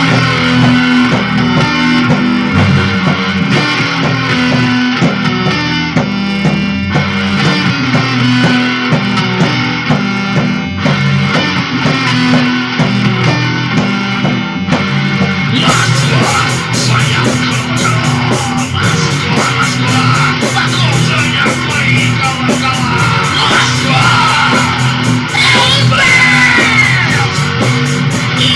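Rock music led by guitar and bass, with drums coming in about halfway through.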